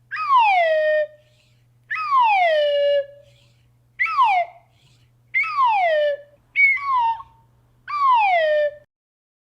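Cartoon whistle sound effect: a whistle sliding down in pitch, repeated about six times, each glide lasting up to a second, with a quicker pair near the end.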